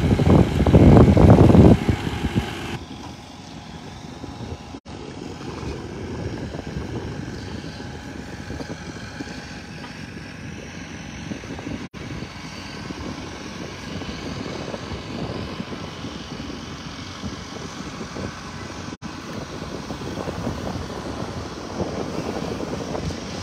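Wind buffeting a phone's microphone: heavy gusts for the first two seconds, then a steadier, lower rumble. The sound cuts out for an instant three times.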